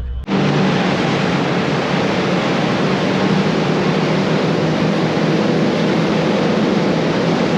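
Powerboat running at speed: a steady, loud roar of engine, rushing water and wind, starting abruptly just after the beginning.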